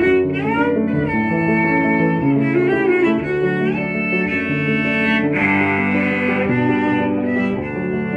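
Solo cello played with the bow: a tarantella, with notes changing quickly and some sliding pitches.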